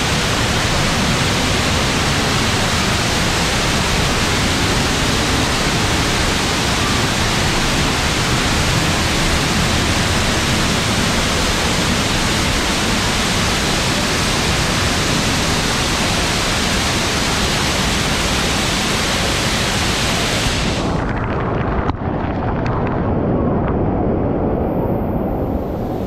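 Loud, steady rush of falling water. About twenty seconds in, the hiss at the top of the sound drops away abruptly, leaving a muffled low rush, and a single knock follows shortly after.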